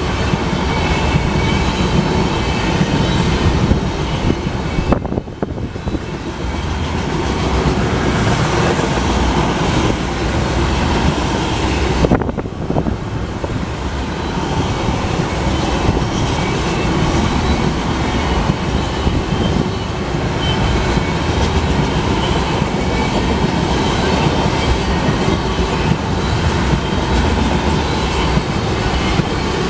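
Loaded tank cars of a freight unit train rolling past, a steady loud rumble of steel wheels on the rails.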